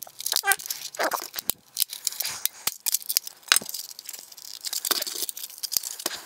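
Plastic clips of a disposable camera's case cracking and snapping as the case is pried apart: a string of sharp, irregular clicks and creaks of hard plastic.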